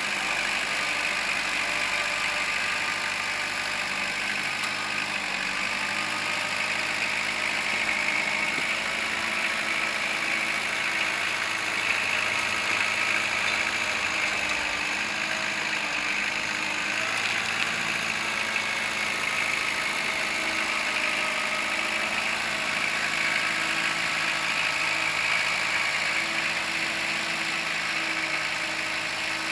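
Kubota L4600 tractor's diesel engine running steadily.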